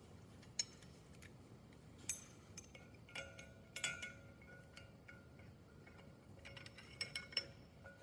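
Faint, scattered light metallic clinks and taps from tools being handled, as the puller and slide hammer are set up on the bearing.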